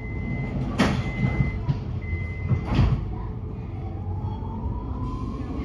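MX3000 metro train's door-closing warning beeps sounding about once a second, with the sliding doors shutting in two whooshes. Then the traction motors start to whine, rising in pitch as the train pulls away.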